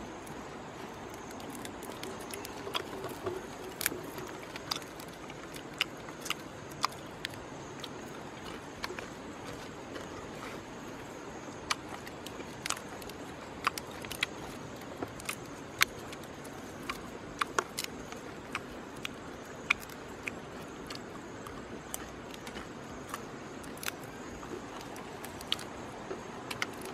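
Small, sharp, irregular clicks and cracks, about one or two a second, of a dung beetle's hard shell being broken apart between the fingers, over a steady faint background hiss.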